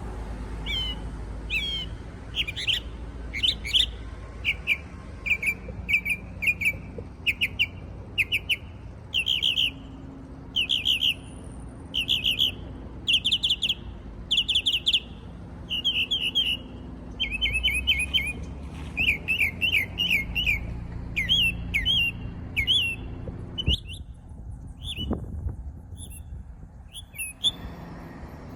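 A small songbird singing a long, quick run of high chirps and trills, repeated in groups of short notes; the song thins to a few scattered notes near the end. A low rumble sits underneath.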